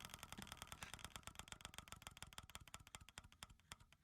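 Faint rapid ticking from an online mystery-box spinner's sound effect as the reels spin, the ticks slowing and spacing out until they stop at the end as the reels come to rest.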